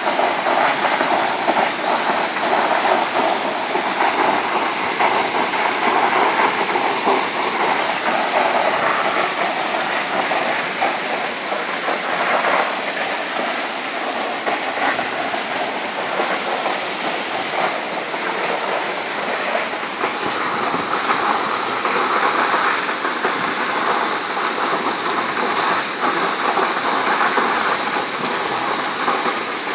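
Large waterfall pouring down granite close by: a loud, steady rush of falling water.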